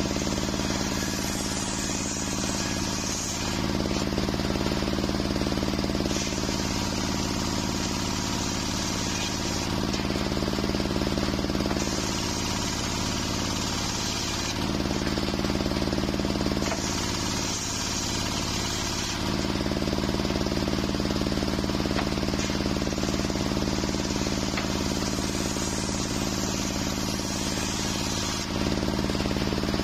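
Large circular saw of a small sawmill ripping waru (sea hibiscus) timber into rafters, over the steady hum of the engine driving it. The cutting comes in several passes of a few seconds each, with short breaks between them while the hum runs on.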